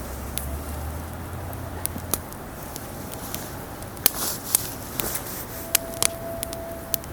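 Wood fire crackling, with irregular sharp pops and snaps over a steady low rush. A thin steady whistle holds for about a second and a half near the end.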